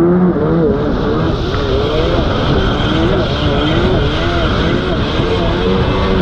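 Carbureted two-stroke jet ski engine running at speed, its pitch rising and falling over and over as the craft rides over the chop. Rushing water spray and wind noise run underneath.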